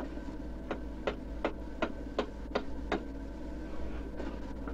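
A carving adze chopping into a wooden mask crest in quick, even blows, about three a second, growing fainter after about three seconds. A steady hum runs underneath.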